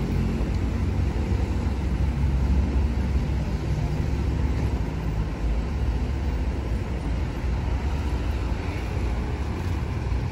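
Truck engine idling nearby: a steady low rumble.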